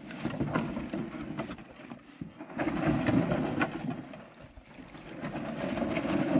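A canoe being pushed off a shallow, stony shore: a gusty rumble that swells and fades three times, with a few light knocks of paddle or hull.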